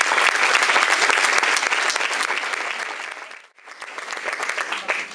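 Audience applauding, dense and even. About three and a half seconds in it drops out briefly, then comes back quieter.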